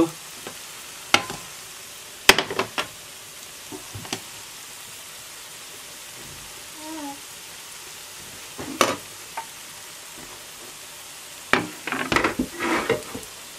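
Grated-potato pancakes sizzling steadily in hot oil in a frying pan. Sharp knocks of kitchenware being set down cut through it a few times, with a cluster of clatters near the end as a wooden cutting board and knife are put down.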